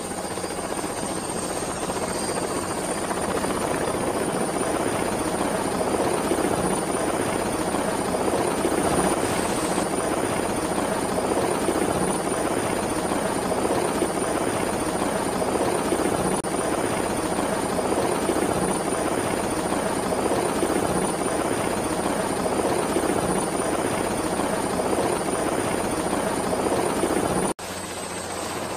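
Helicopter rotors and engine running steadily, with a thin high whine above the rotor noise. It grows a little louder over the first few seconds, then drops abruptly near the end and carries on quieter.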